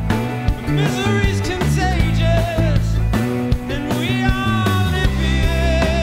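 Live band playing an instrumental passage of an indie-rock song: bowed violin lines with vibrato over electric guitar and bass, with a steady beat.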